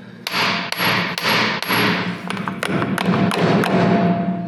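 Steel being hammered while a universal joint bearing cap is worked off a tractor driveline yoke. It is a run of sharp metal-on-metal blows that come faster after about two seconds.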